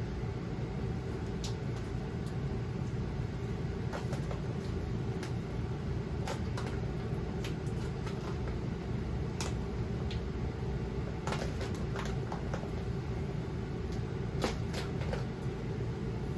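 Heat gun's blower running steadily while a vinyl wrap is peeled off a truck tailgate, with scattered sharp clicks and crackles as the warmed vinyl and glue pull away.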